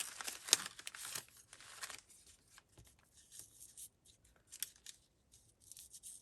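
Paper rustling and crinkling as small pieces of craft ephemera are handled, busiest in the first two seconds, then fainter scattered rustles and light ticks.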